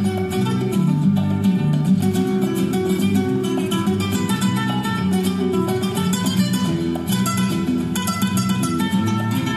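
Flamenco-style guitar music, a run of quick plucked notes over a moving bass line.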